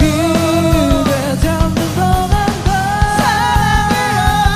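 Live rock band performance: a male lead singer sings over drums and electric guitar, holding a long note in the second half.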